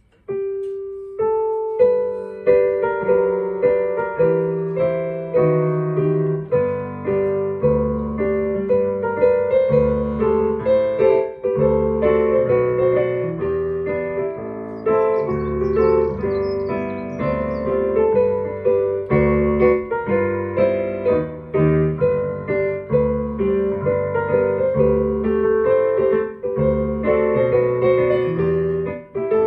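Digital piano played solo in a piano voice: a single held note opens, then chords and a melody, with a bass line joining about six seconds in.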